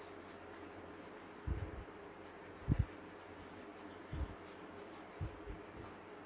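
Handling noise from fitting plastic model bridge parts on a railway layout baseboard: four dull low knocks, the loudest a quick double knock a little before the middle, over faint rustling.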